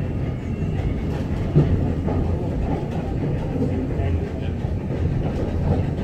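Steam-hauled passenger train running along the line, heard from aboard: a steady rumble of coach wheels on the rails, with a single knock about a second and a half in.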